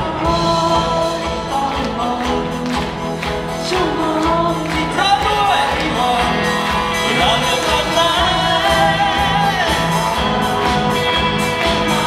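A live band playing a Thai pop song through the concert PA, with a lead singer's voice over a steady beat.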